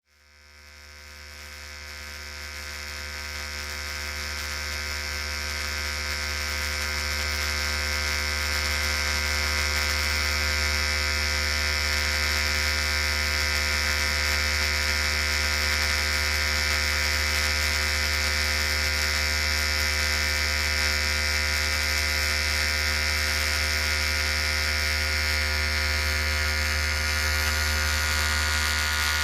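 Electric hair clippers running with a steady buzz, fading in over the first several seconds and then holding at a constant level.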